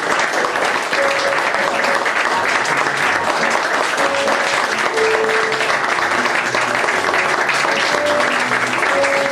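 Theatre audience applauding steadily through a curtain-call bow, with music playing quietly underneath.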